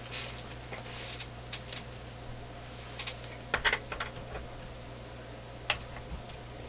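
Scattered small clicks and taps of tools and parts being handled at a workbench, sharpest a little past the middle, over a steady low hum.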